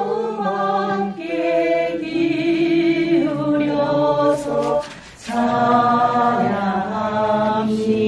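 Korean Buddhist liturgical chanting: monks and a lay congregation chant a text together in unison, in long held tones. There is a short breath pause about five seconds in, then the chant resumes.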